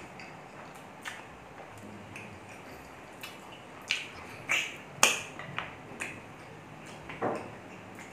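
Wet mouth sounds of eating saucy pork ribs by hand: lip smacks and chewing as fingers are sucked clean, with a cluster of sharp smacks about four to five seconds in and another near the end.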